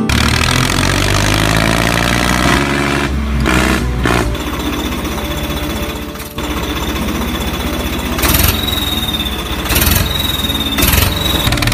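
A tractor engine running with a fast, steady chug, as the chained tractor pulls the stuck one free. A thin high whine comes and goes in the second half.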